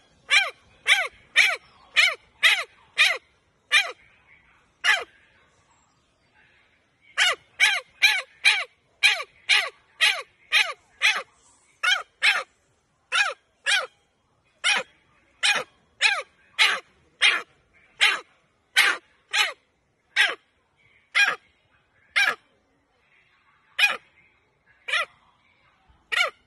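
Macaque calling: short, loud cries repeated about twice a second, each sliding down in pitch. The cries pause for about two seconds around five seconds in, then resume.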